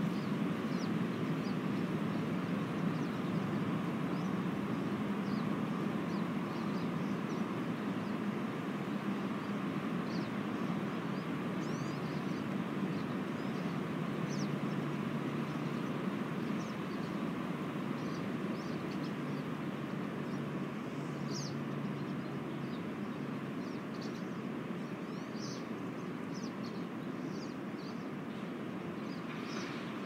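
Steady rush of wind through conifer trees, easing slightly toward the end, with brief high bird chirps scattered throughout.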